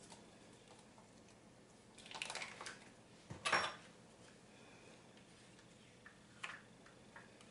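Faint kitchen handling noises: a spoon scraping processed cheese out of its plastic packaging, with two short scrapes about two and three and a half seconds in, the second the loudest, and a few light clicks near the end.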